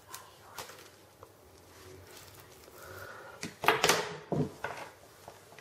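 Handling noise from a USB cable and plastic packaging being moved about on a table: a few soft clicks, then a loud cluster of rustles and knocks about three and a half seconds in.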